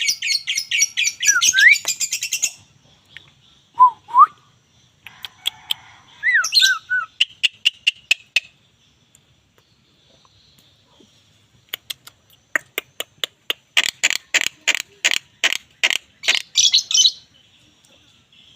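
Javan myna (jalak kebo) calling: fast runs of harsh, rasping notes with a few short rising whistles, a pause in the middle, then another fast harsh run near the end.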